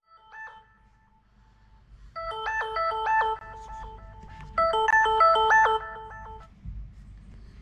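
Phone ringtone-style melody of short bell-like notes: a brief phrase near the start, then two louder runs of quick notes about two and five seconds in. A faint low hum runs underneath.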